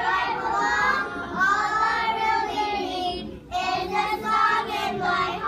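A group of young children singing a song together, with a short break about three and a half seconds in.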